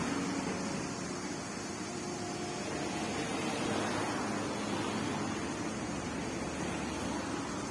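Steady whirring noise of an electric stand fan running.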